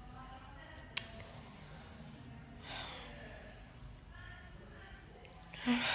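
A woman sighing, one audible breath about three seconds in, over low room noise, with a single sharp click about a second in.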